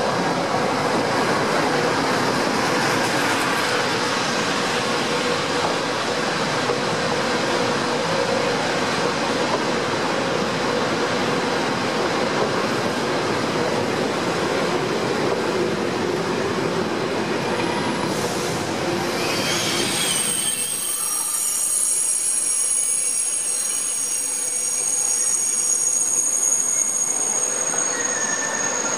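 TGV Euroduplex double-deck high-speed train passing close by: a steady loud rush of wheels and cars on the rails. About twenty seconds in the rush thins and thin high-pitched tones like wheel squeal come in.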